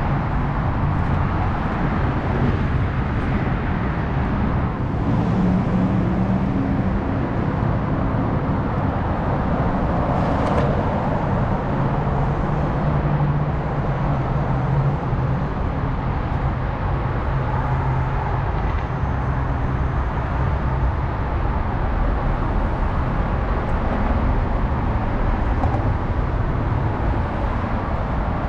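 Steady road traffic noise: passing cars and engines making a continuous rumble, with low engine hum rising and fading as vehicles go by.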